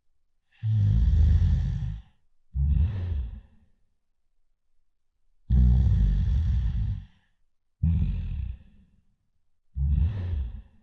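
Cartoon-style snoring, loud and rattling: five snores in a row with short silent pauses between them, the first and third the longest.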